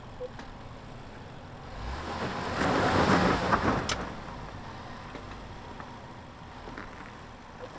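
Range Rover L405 climbing a rocky trail: engine and tyres on loose rock swell loud for a couple of seconds about two seconds in, with a sharp click near the peak, then settle back to a steady low rumble.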